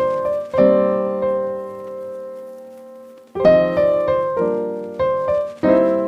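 Ringtone melody on a piano-like keyboard: a few struck chords, a long chord that slowly fades away, then the phrase starts again about three and a half seconds in with several more struck chords.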